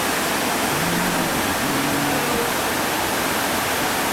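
Steady roar of a big whitewater rapid running at high water.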